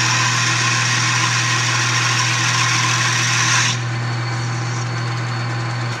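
South Bend 13-inch metal lathe running with a steady motor hum while turning bronze stock, with a loud hiss from the cut and from the chip brush on the spinning work. The hiss stops abruptly about two-thirds of the way through as the cut ends, and the motor hum cuts off at the very end when the lathe is switched off.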